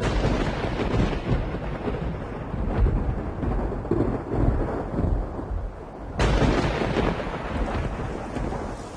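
Thunder rumbling in a storm, with a sudden louder crack about six seconds in that leaves a fuller rushing noise after it.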